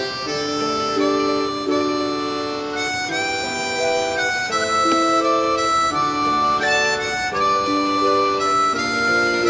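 Background music: a harmonica-led melody with guitar accompaniment.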